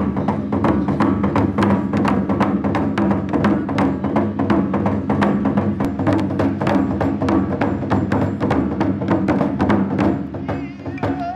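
Music with a fast, steady beat of sharp percussive strikes, about five a second, over a dense low accompaniment; a high, wavering melody line comes in near the end.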